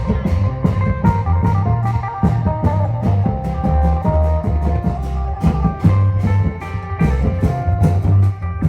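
Isan klong yao long-drum band playing: drums and cymbals keep a fast, steady beat under a plucked, guitar-like melody.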